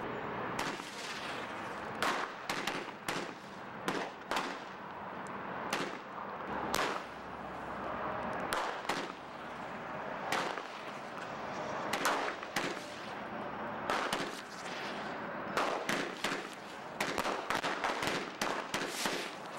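Huge 25-shot Roman candle cake firing its shots one after another: sharp bangs at an uneven pace, often one or two a second and sometimes in quick clusters, with a hiss between them.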